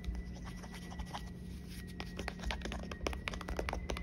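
Fingernails picking at and peeling a sticker label off the back of a smartphone: a run of quick, scratchy clicks that comes thicker in the second half.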